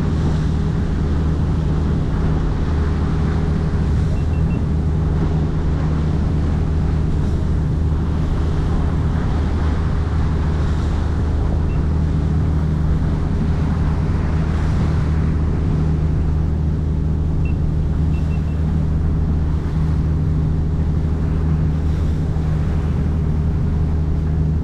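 Boat engine running at a steady speed with a constant low hum, over the rush of water along the hull and wind on the microphone.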